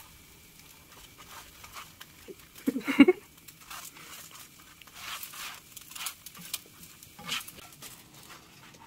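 Scattered light clicks, rustles and crinkles of food and kitchen utensils being handled, with one short, loud, pitched call about three seconds in.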